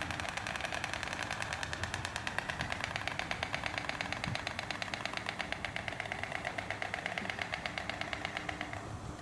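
White storks clattering their bills: a long run of rapid, even wooden clacks that stops just before the end.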